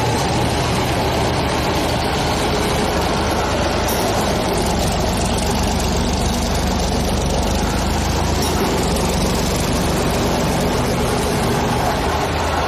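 Heavy construction machine's engine running steadily with a low, even hum, with no hammer blows.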